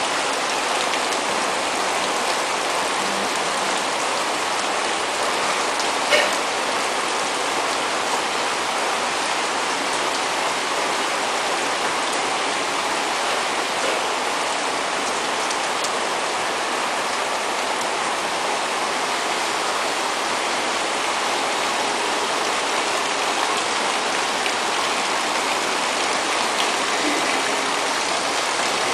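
Steady rainfall: an even hiss of falling drops with scattered small taps, and one sharper tap about six seconds in.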